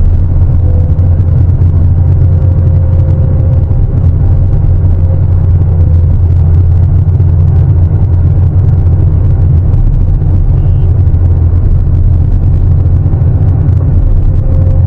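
Sany 750 hydraulic excavator's diesel engine running steadily under load, a loud, unbroken low drone.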